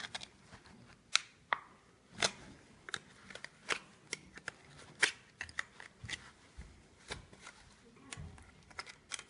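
Thin tin-can lid metal being pinched and crimped with a metal-bending tool: irregular sharp metallic clicks and crinkles as the folded edges are pressed flat.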